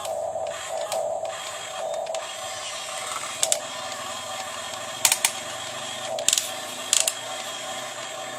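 Small electric drive motors of a homemade 1:15-scale RC excavator whining, swelling and easing as it works, with a few sharp clicks or knocks in the second half.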